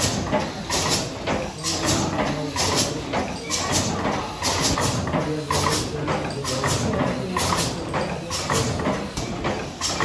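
Steam mill engine running, with a regular hissing beat of steam about one and a half times a second over a low rumble.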